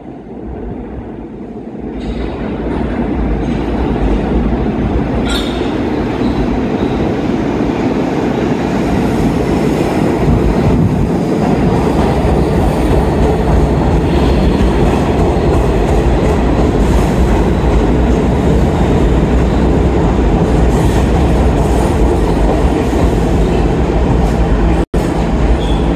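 R46 New York subway train in an underground station: a loud, steady rumble of the train along the platform, swelling up about two seconds in as it reaches the platform. The sound cuts out for a split second near the end.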